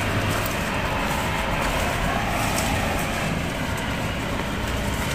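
Steady rumble of road traffic, an even wash of noise with no distinct events.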